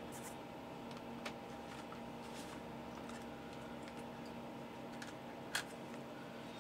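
Faint steady electrical hum, with a few light clicks and taps as a small plastic RC toy helicopter is handled and picked up.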